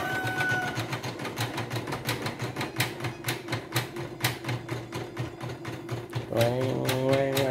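Singer Quantum Stylist EM200 embroidery machine stitching a test design: rapid, even needle clicks over the motor's hum, a sign that the stitching now runs fairly smoothly after a service for uneven stitching. Music with a melody comes in about six seconds in.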